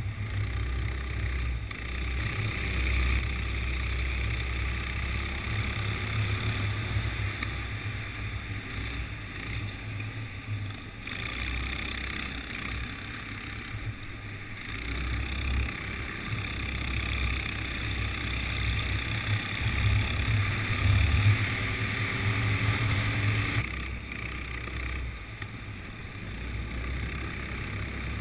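Go-kart engine running at speed, its note rising and falling as the kart accelerates and lifts through the corners, heard from a camera mounted on the kart with a heavy low rumble under it.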